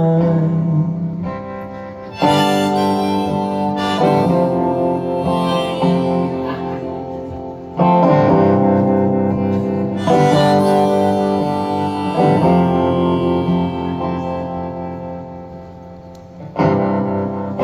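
Live acoustic guitar strumming chords under a harmonica playing long held chords, an instrumental break between sung verses. The music swells with each new phrase and fades between them.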